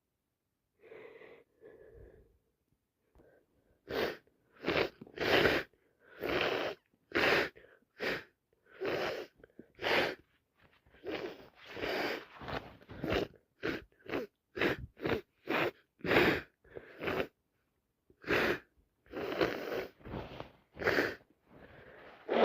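A sick woman's long fit of rapid, small sneezes: short, breathy bursts, about one or two a second, starting about four seconds in after a couple of softer breaths.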